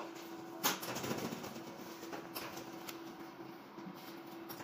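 Faint clicks and knocks of locker vending machine doors being opened to take out purchased products, with the sharpest knock just under a second in, over a faint steady hum.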